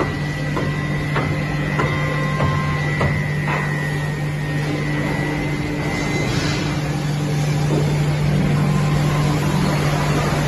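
Eight-spindle, 32-tool CNC wood milling machine running: a steady low hum with a high whine that fades out about halfway through, and scattered clicks and knocks in the first few seconds.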